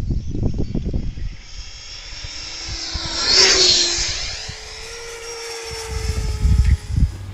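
Radio-controlled model F-16 jet flying past, its whine building to loudest about three and a half seconds in and then fading as it moves away. Wind rumble on the microphone at the start and near the end.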